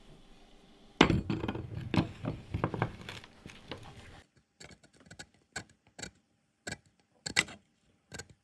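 A steel file clattering and knocking against a cast-iron bench vise as it is set in and clamped, for about three seconds, followed by a string of separate sharp metal clicks and taps.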